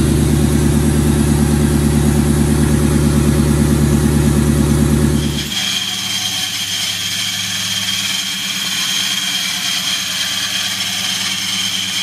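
Mustang engine idling smoothly and evenly on a fresh timing chain set, which has cured a broken tensioner rubbing on the chain. About five seconds in it cuts to a Mustang GT's engine running, with a steady high-pitched whine over it.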